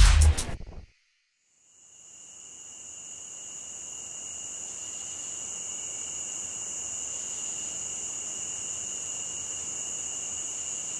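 Background music ends and is followed by about a second of silence. A steady insect chorus then fades in and holds: two constant high-pitched tones over a faint hiss.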